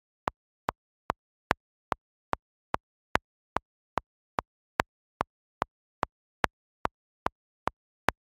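Steady, evenly spaced ticking, about two and a half sharp ticks a second, like a metronome, with silence between the ticks.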